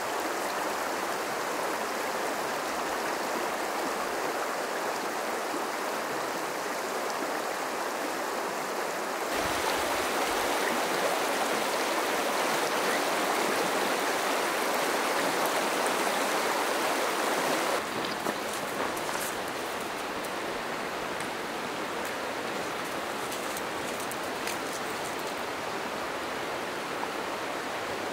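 Shallow, stony creek flowing: a steady rush of water, louder from about nine seconds in and easing back a little at about eighteen.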